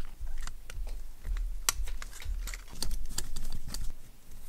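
Light, irregular clicks and taps of small chassis parts being handled and fitted together by hand on a micro RC crawler.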